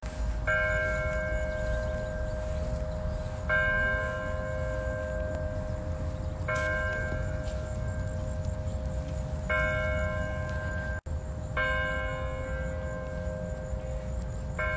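A bell tolling, struck five times about three seconds apart, each stroke ringing on until the next.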